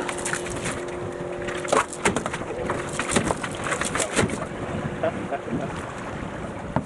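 Irregular knocks and bumps in a boat as a large king salmon is hauled aboard and handled, over a steady hum that cuts off about two seconds in.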